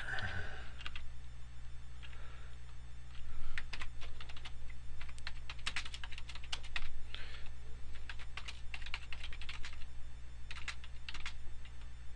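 Computer keyboard being typed on in quick, irregular bursts of keystrokes, with short pauses between runs.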